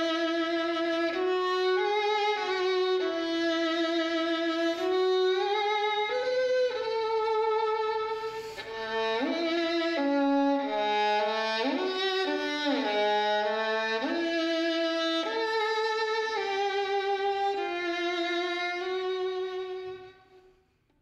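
Violin playing a slow classical melody of held notes with vibrato, fading out near the end.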